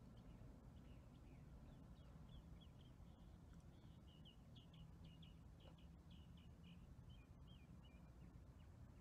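Near silence with a faint low rumble, over which a bird chirps faintly and repeatedly, a few short chirps a second from about two seconds in until near the end.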